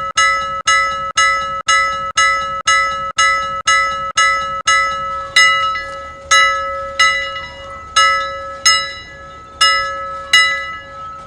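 Timer's alarm bell ringing to signal that the countdown has ended and time is up. It is struck about twice a second at first. About five seconds in, the strikes slow to roughly one a second, uneven, with the tone ringing on between them.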